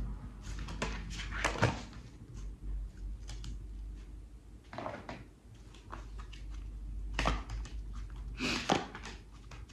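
Tarot cards being handled on a table: a card drawn and laid down in the spread, then the deck shuffled, heard as scattered light taps and short swishes.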